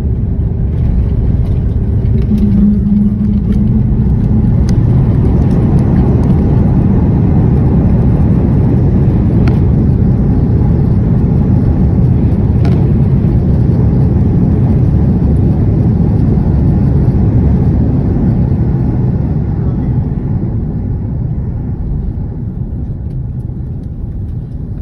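Airliner landing roll heard from inside the cabin over the wing: a loud, steady rumble of engines, airflow and runway noise. It swells about a second in as the jet decelerates on the runway with its spoilers up, then eases off over the last few seconds as the aircraft slows.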